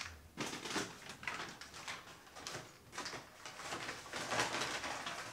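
Brown paper takeout bag crinkling and rustling as it is picked up and rummaged through, uneven and loudest about four seconds in.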